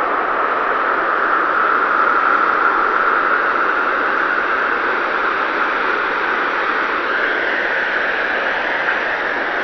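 Steady rushing of the Alaknanda river in flood, an even wash of fast-moving water.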